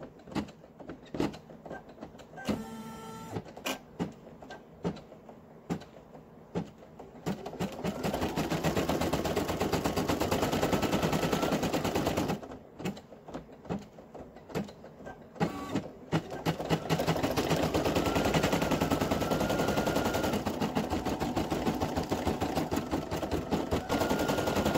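Brother PE800 embroidery machine stitching the small squiggly detail lines: fast runs of rapid needle strokes, broken twice by quieter spells of separate clicks, first up to about 7 seconds in and again for a few seconds around the middle.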